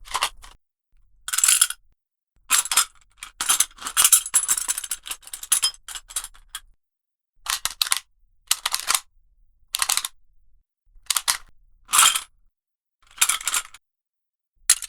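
A series of short metallic clinking and rattling bursts, metal rubbed and knocked against metal, about a dozen with gaps between and a busier run of clinks in the middle. It is foley for the clinking heard when a tokusatsu hero's transformation belt or item is handled.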